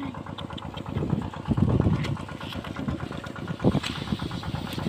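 Small water-pump engine running steadily, a fast even chugging, with louder thumps about a second and a half and nearly four seconds in.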